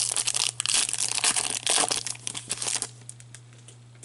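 Wrapper of a hockey card pack crinkling and tearing as it is ripped open by hand; the crinkling stops about three seconds in, leaving a few faint ticks.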